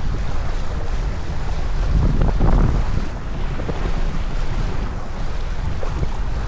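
Wind buffeting the microphone over water rushing along the hull of a sailboat under way, with a louder surge about two seconds in.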